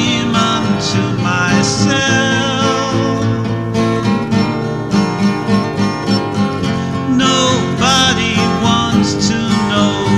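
A song playing: acoustic guitar accompanying a singing voice.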